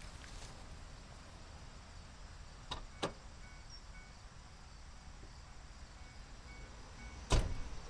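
Quiet open-air ambience: a steady faint hiss with faint short chirps repeating now and then, two light clicks about three seconds in, and a single thump near the end.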